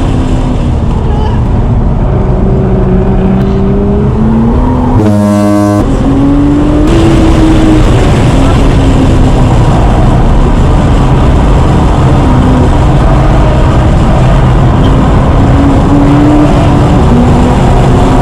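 Nissan GT-R's twin-turbo V6 heard from inside the cabin at track speed, its pitch climbing through each gear and dropping at the shifts, over loud road and wind noise. There is a brief change in the engine sound about five seconds in.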